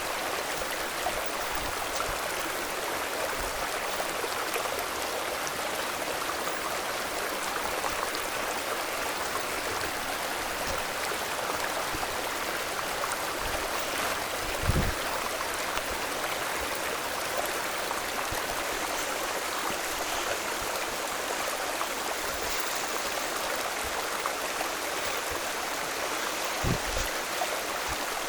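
Steady rush of running water from a waterfall and its stream. Two low thumps break in, one about halfway through and one near the end.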